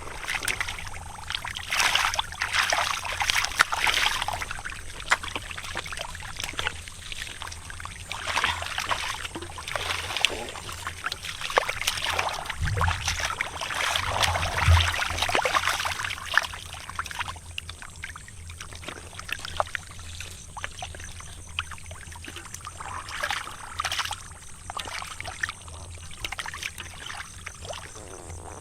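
Shallow muddy water splashing and sloshing in irregular surges, with small wet crackles, over a low steady hum.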